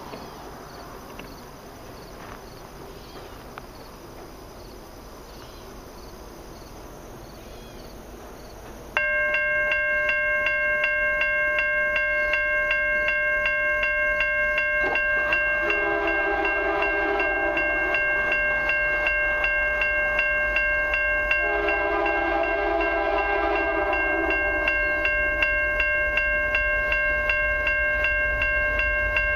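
Level-crossing warning bell switching on suddenly about nine seconds in and ringing rapidly and steadily as the train approaches. Over it an approaching freight locomotive's horn sounds two long blasts for the crossing, with a third beginning at the very end.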